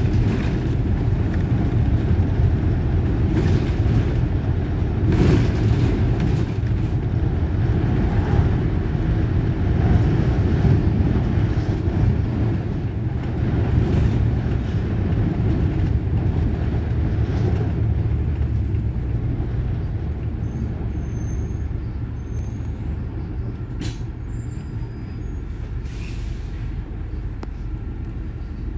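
A city bus running, heard on board: a steady low engine and road rumble with a few short sharp sounds, one about five seconds in and two near the end. The rumble eases somewhat in the last third.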